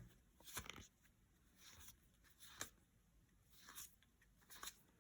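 Trading cards being leafed through by hand: faint soft flicks and slides of card stock about once a second.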